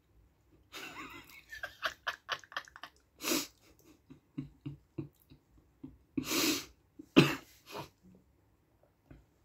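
A person near the microphone laughing under their breath: a quick run of short, breathy laugh pulses, then a few stronger puffs of air.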